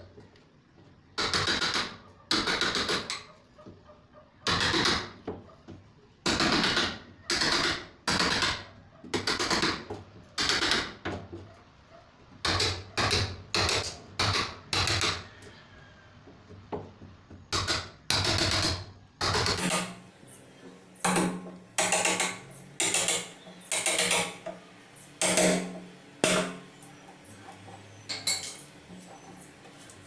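Wood chisel repeatedly struck into the wooden edge of a door, about one sharp stroke a second with uneven spacing. It is cutting out the shallow recess for a door lock's latch plate so that the plate sits flush with the door edge.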